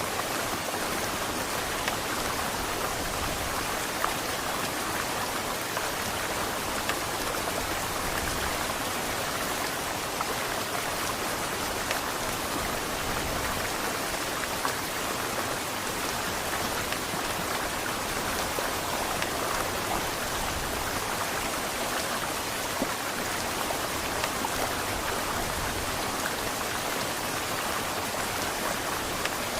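Heavy rain falling steadily, with scattered louder drop hits.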